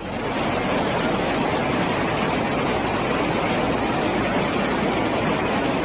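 Loud, steady rushing of a fast-flowing floodwater torrent.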